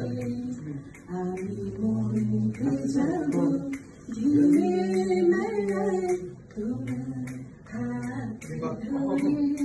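A voice singing a Bengali song unaccompanied, in long held notes that slide and waver, with short breaks between phrases.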